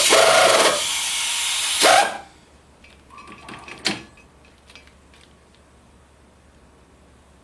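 A loud machine running, dropping in level, then shutting off about two seconds in, followed by a few small clicks and knocks.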